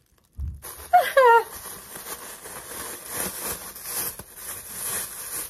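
Clear plastic wrapping crinkling and rustling as it is pulled off plush teddy bears, with a low bump just before it starts.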